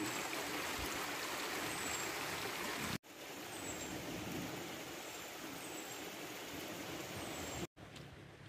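A steady outdoor rushing hiss that breaks off abruptly twice as the footage cuts. Faint, short, high falling chirps repeat through the middle part, and the hiss drops quieter after the second break near the end.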